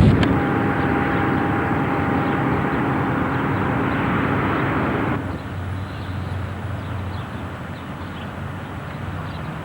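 A steady engine hum with a few held tones, which changes abruptly about five seconds in to a quieter, lower hum.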